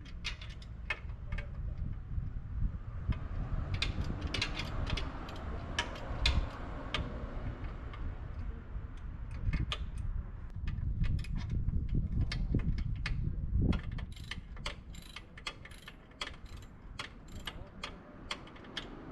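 Hand tools and metal parts clicking and clinking irregularly during motorcycle exhaust work, over dull handling bumps; the clicks come faster in the last few seconds.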